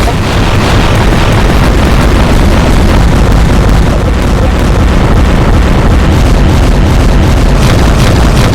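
Explosion sound effect played very loud: one continuous wall of noise with no separate blasts and no letup.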